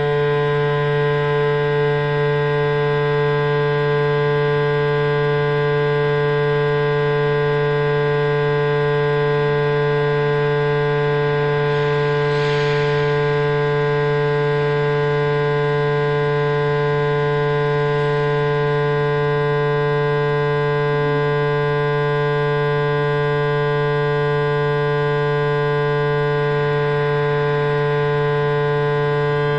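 A loud, steady electronic drone: a low hum with many even overtones stacked above it, holding one unchanging pitch, the tone of a sound installation filling the gallery room. A brief hiss rises over it about twelve seconds in.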